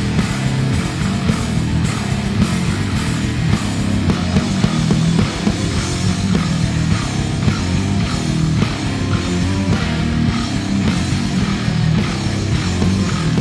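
Heavy instrumental rock from a bass-and-drums duo: bass guitar run through effects, with a drum kit playing along. The bass is loud, and the high end thins out about four seconds in.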